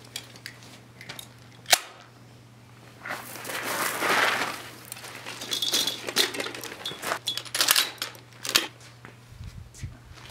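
A PKM machine gun being loaded: clicks and rattles of the ammunition belt going into the feed tray, then a loud metallic snap about two seconds in as the feed cover is shut. Gravel crunches for a couple of seconds in the middle, followed by a run of sharp metallic clicks near the end as the gun is readied to fire.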